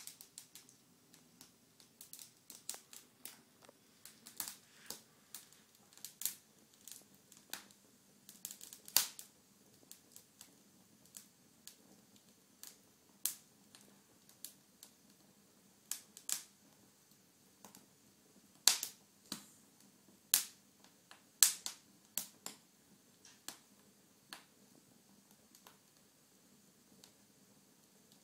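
Logs crackling in an open fire: irregular sharp pops and snaps, with a handful of louder cracks among them.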